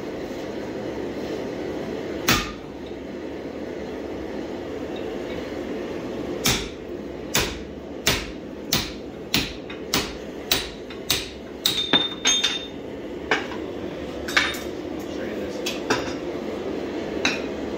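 Hand hammer striking a red-hot steel axe head held in a vise. There is one blow, then a run of about a dozen blows at roughly one and a half a second, then a few scattered blows, all over a steady background hum.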